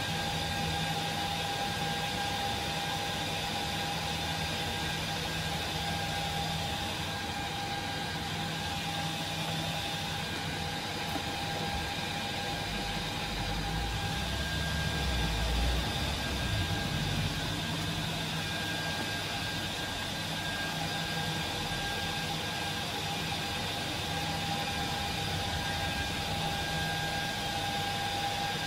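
HP ProLiant DL380p G8 server's cooling fans running steadily: a rushing hiss with a steady whine in it. A low rumble swells briefly around the middle.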